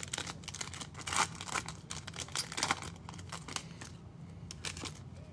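A Donruss Optic trading-card pack being torn open and its wrapper crinkled by hand: a dense run of crackles for the first three seconds or so, then a few scattered ones as the cards come out.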